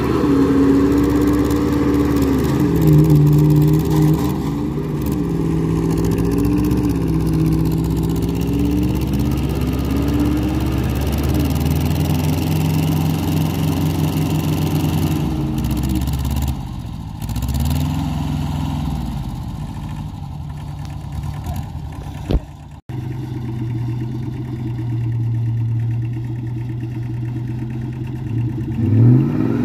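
A pickup truck's engine revving up and down over and over while it pulls against a compact tractor on a tow rope, over the steady running of the tractor's engine. The sound drops out briefly about two-thirds of the way through.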